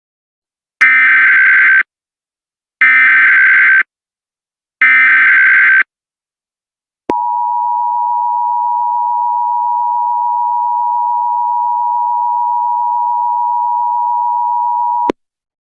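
Emergency Alert System broadcast signals announcing a tornado warning. First come three one-second bursts of warbling SAME header data tones, evenly spaced. After a short gap, the two-tone EAS attention signal sounds steadily for about eight seconds and then cuts off.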